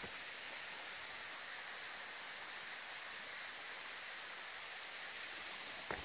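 Steady, even hiss of running water from the creek below the waterfall.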